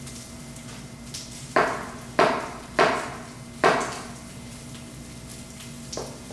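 Chef's knife slicing mushrooms thin and striking a plastic cutting board: four sharp chops about half a second apart, then one lighter chop near the end. A pan of shrimp shells, garlic and onion frying faintly underneath.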